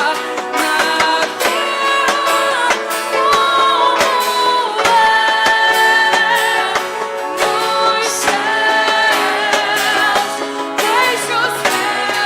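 Worship band music: a female voice singing held, sustained notes over guitar accompaniment.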